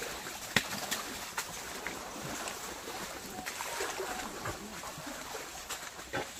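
Water sloshing and splashing as a riding elephant wades through a shallow stream, with a few sharp clicks, the loudest about half a second in.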